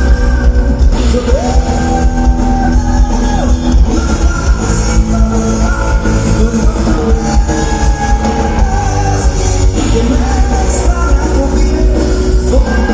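Loud live rock band playing, with singing over a heavy bass.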